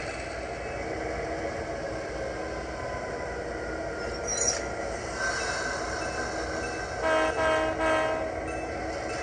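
HO-scale model diesel locomotive's onboard sound system running steadily, with a brief high squeal about halfway through, then three horn blasts in quick succession near the end.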